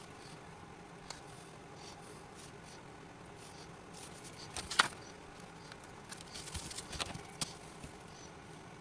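Quiet handling noises: scattered light clicks and scrapes, with one sharp click a little before the middle and a run of small taps and clicks soon after.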